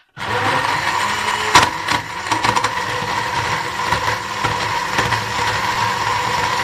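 Electric countertop blender switching on and running steadily at speed, blending bananas, dates and yogurt into a lassi. A few sharp knocks come in the first couple of seconds as the solid chunks break up.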